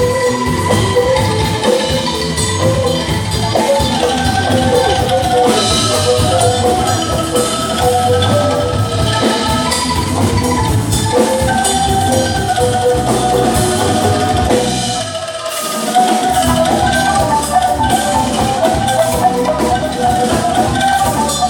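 Angklung ensemble, shaken bamboo tubes, playing a melody with a band's drum kit. The drums and bass drop out briefly about two-thirds of the way through, then come back in.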